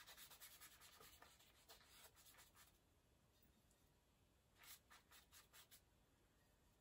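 Near silence with faint, scratchy strokes of a paintbrush laying acrylic paint on paper: a run of quick strokes over the first two and a half seconds, a pause, then another short run about five seconds in.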